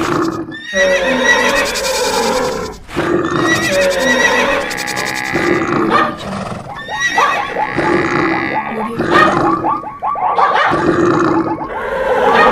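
Overlapping animal calls laid over one another, horses neighing and whinnying among them; the calls break off briefly a few times and turn into a fast stuttering run in the second half.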